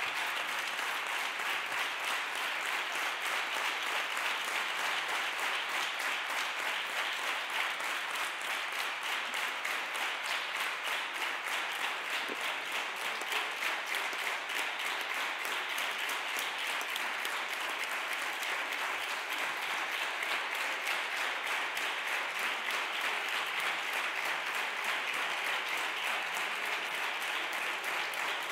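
Senators applauding together in a standing ovation: dense, steady clapping with no break.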